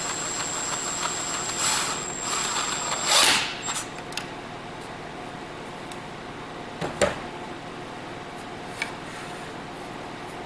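Milwaukee M18 cordless impact driver driving a 1-inch drywall screw into a wooden board, with a high steady whine. It is loudest just before it stops about three seconds in. A few sharp knocks of wood being handled follow.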